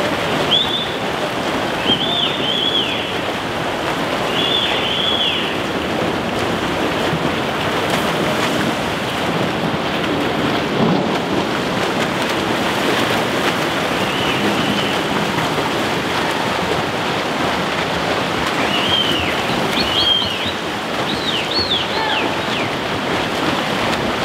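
Steady splashing and churning of water from several swimmers swimming butterfly, with short high chirps now and then.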